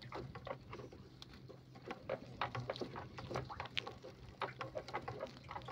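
Gill net being hauled into a boat: a rapid, irregular patter of taps and slaps as mesh, floats and caught mullet hit the deck, over a low steady hum.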